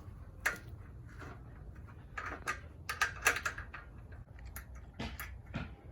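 Irregular light clicks and clatters of small hardware and tools being handled and rummaged through while a kit shed is put together.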